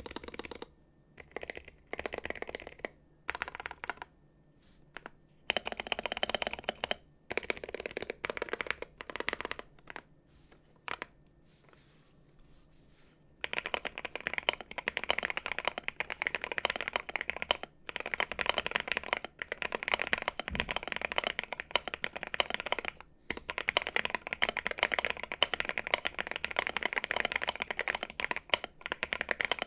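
Typing on an Akko MOD005 65% gasket-mount aluminium keyboard with an FR4 plate, lubed Akko CS Jelly Black linear switches and double-shot PBT ASA-profile keycaps, tape-modded and with PE foam under the switches. Short spurts of keystrokes with pauses, then, from about halfway, steady fast typing.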